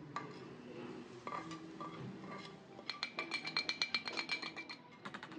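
Stainless steel frying pan being scraped and tapped with a spoon to empty sautéed onions into a bowl of batter. A few scattered clinks, then about halfway through a fast run of ringing metal taps, about eight a second, lasting about two seconds.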